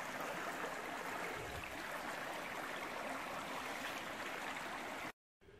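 Shallow creek running over rocks: a steady wash of water that cuts off suddenly near the end.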